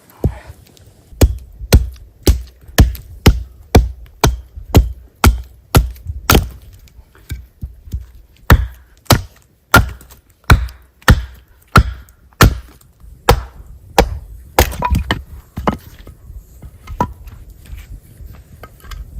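A blade chopping repeatedly into a wooden log, about two strikes a second with a brief pause partway, then lighter, irregular knocks near the end.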